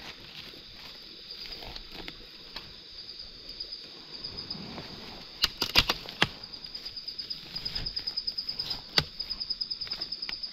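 Insects trilling steadily in the forest, a high pulsing chirr that grows more evenly rhythmic in the second half. A few sharp cracks, loudest around the middle, cut across it.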